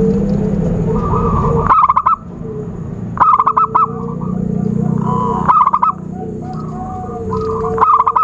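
Zebra dove (perkutut) cooing: four bursts of quick stuttering notes, about two seconds apart, over softer drawn-out coos and a faint steady high-pitched tone.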